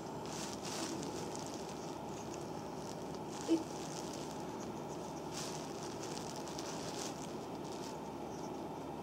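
Soft, faint rubbing and slick squishing of fingers and a wooden massage stick working oil between the toes of a bare foot, over a steady background hum. A single short blip about three and a half seconds in.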